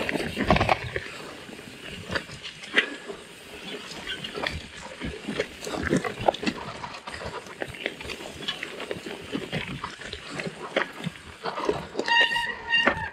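A bicycle rattling and crunching down a rough, rocky, loose-gravel trail, with many irregular clicks and knocks from tyres and frame. Near the end the brakes give a short squeal.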